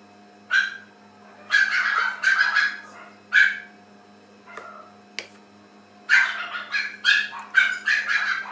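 A dog barking in short bursts: a few separate barks in the first three and a half seconds, then a quick run of barks over the last two seconds.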